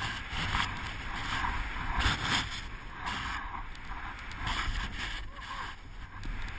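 Skis hissing through soft off-piste snow, swelling in surges with each turn, over a low rumble of wind buffeting a helmet-mounted camera's microphone.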